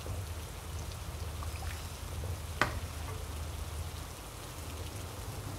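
Coconut-milk curry broth simmering in a wok with a steady fizzing crackle while a steel ladle stirs it, with one sharp click about two and a half seconds in.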